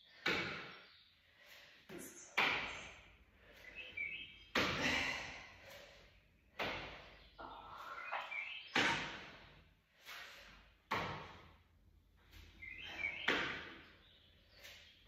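A person doing plank hand-to-opposite-foot touches, each repetition giving a sudden thump or whoosh that fades over about a second, roughly one every two seconds.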